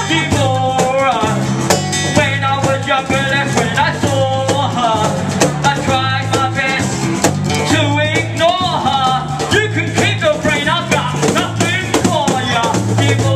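Live band playing: strummed acoustic guitar, electric bass and cajon, with a shaker, under a lead melody at the microphone.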